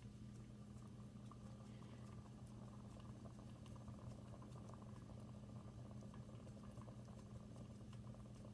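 Near silence: room tone with a steady low hum and faint, soft sounds of fingers pressing and pinching soft dough.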